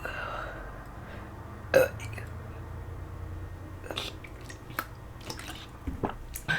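A person forcing out deliberate burps while burping the alphabet: a short burp at the start, a sharp loud click a little under two seconds in, and several softer clicks later on.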